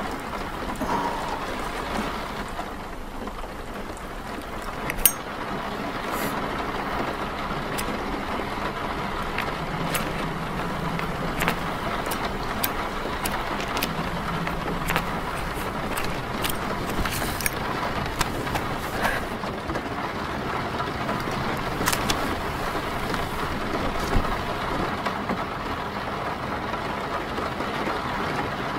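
Rain falling on a car's roof and windscreen, heard from inside the car: a steady hiss with scattered sharp drop hits over a faint low rumble.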